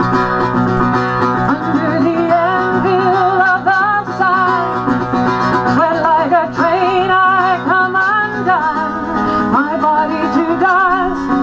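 A woman singing a melody with a marked vibrato, accompanying herself on a plucked acoustic string instrument.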